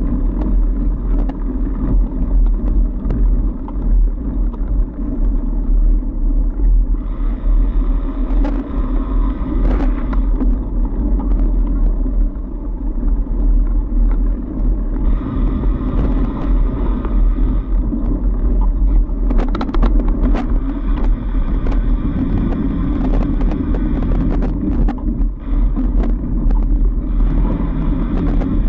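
Fat bike riding over a packed-snow trail: a steady low rumble of the wide tyres rolling, with stretches of rattling and clicking and a cluster of sharp knocks about twenty seconds in, as the bike jolts over the trail.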